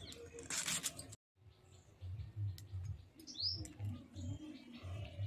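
One crisp, rasping slice of cabbage shredded against a curved hand-held blade, cut off sharply about a second in. After that a bird chirps a few times, one rising chirp in the middle standing out, over faint low bumps.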